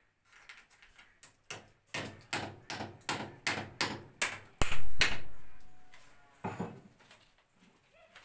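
Hammer driving nails into a brick wall to hold PVC electrical conduit in its chase: a run of about ten quick blows, roughly two and a half a second, growing louder with the loudest near the end, then one more blow after a short pause.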